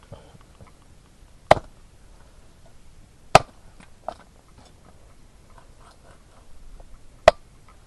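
Machete blade chopping cooked chicken against a wooden cutting board: three sharp chops spaced a few seconds apart, with faint small clicks and rustles between.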